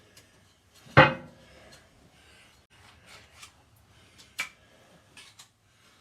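Metal parts and tools being handled: a heavy clank with a brief ring about a second in, a sharp click a few seconds later, and light clicks and rubbing in between.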